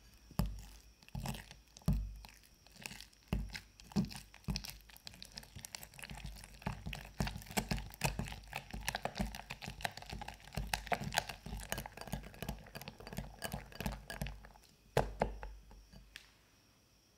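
A wire whisk beats cream cheese and whipping cream in a glass bowl. The wires tick and scrape against the glass with each stroke. The strokes are spaced out at first, then fast and steady, with a few harder strokes near the end before they stop.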